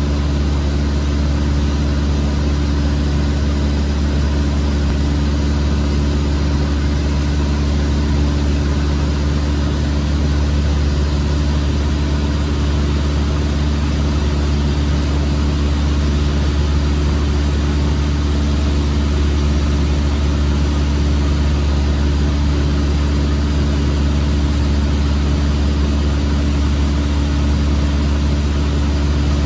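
Engine and propeller of a single-engine light aircraft droning steadily, heard from inside the cabin: a loud, even low hum with several steady tones over a hiss, unchanging throughout.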